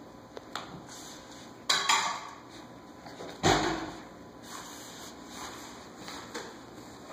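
A baby's hands slapping a greeting card on a carpeted floor: two sharp knocks, about two seconds in and again a second and a half later, the second louder with a dull thud.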